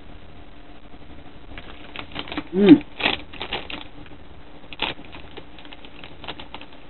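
Crinkly plastic sweet packet being picked up and handled, a run of light crackles and clicks. A short hummed 'mm' from the voice about two and a half seconds in is the loudest sound.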